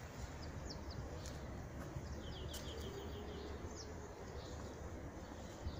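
Outdoor ambience: small birds chirping in short high notes, with a quick run of about eight chirps around two seconds in, over a steady low rumble.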